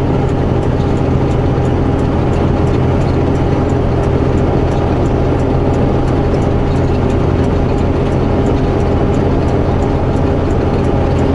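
Semi-truck's diesel engine running steadily while climbing, a constant drone with a steady hum heard from inside the cab. Faint, regular ticking sits above it.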